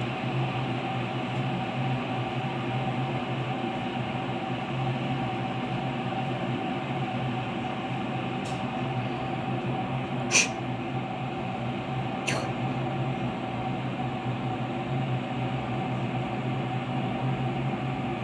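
Galaxy Line GL0338 electric kettle heating water toward the boil, a steady hiss with a low hum. There are a few sharp clicks, the loudest about ten seconds in.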